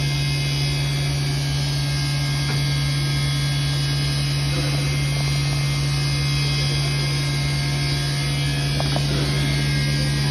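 Cab of a standing NSW 32 class steam locomotive, 3265: a steady deep hum with an even hiss of steam over it, unchanging throughout, with a couple of faint knocks near the end.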